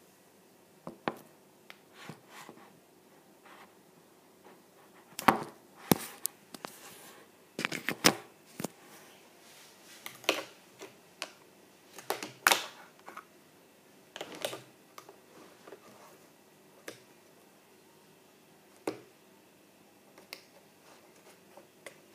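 Irregular sharp clicks and knocks from a tablet and a paint marker being handled over a paper drawing. The louder ones bunch together between about five and thirteen seconds in.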